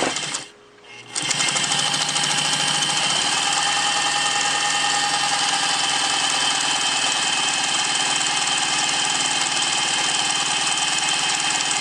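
Pfaff 130 sewing machine running at a steady speed, stitching fabric with a fast, even rhythm; it stops briefly about half a second in and starts again about a second in.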